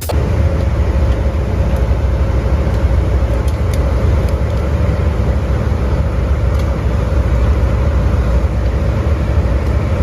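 Ship's machinery running: a loud, steady low drone with a faint steady hum above it.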